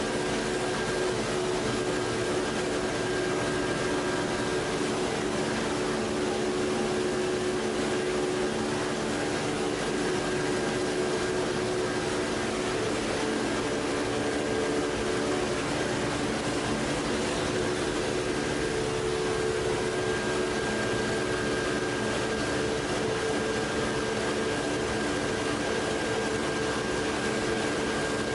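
Steady machinery hum of a running plastic strapping extrusion line: motors and winders drone as an even noise with several held tones, low ones and one higher whine.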